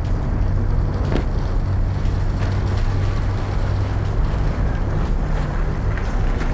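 Small hatchback's engine running at low speed as the car pulls slowly into a parking spot close by, a steady low hum, with wind rumbling on the microphone.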